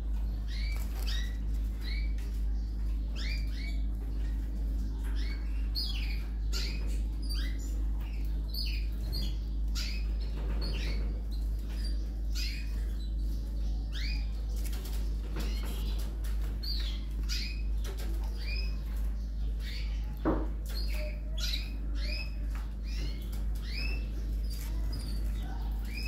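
Canary nestlings begging to be fed: a dense, continuous stream of short, high, rapid cheeps over a steady low hum. A single sharp click comes about twenty seconds in.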